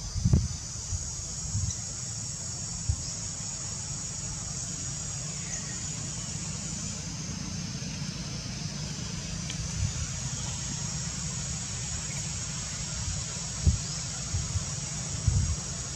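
Steady high-pitched drone of insects, with a low rumble underneath and a few short thumps, one near the start and one a couple of seconds before the end.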